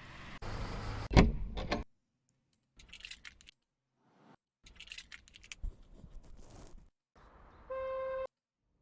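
Car door handle sound-effect recordings, several short takes of metallic clicking and latch rattling cut off by sudden silences. The loudest is a sharp clack about a second in. Near the end comes a short steady tone lasting about half a second.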